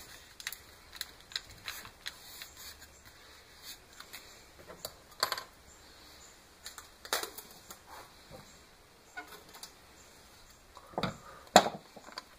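Scattered light clicks and taps of small tools being handled on a wooden workbench. Louder knocks come near the end, as scissors are set down on the bench.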